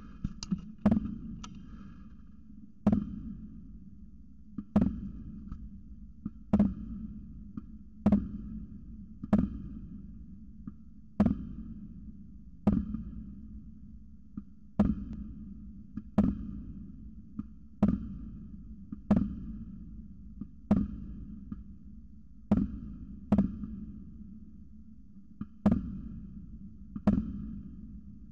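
Firecrackers going off outdoors, a sharp bang every one and a half to two seconds, about seventeen in all. Each bang trails off in a short echo.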